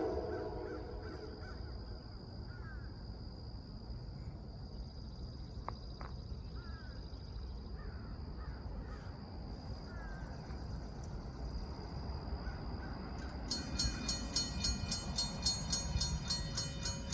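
Crows cawing several times over the low rumble of an approaching freight train, the locomotive horn trailing off at the very start. About two-thirds of the way in, a rapid rhythmic ringing begins and the train grows louder.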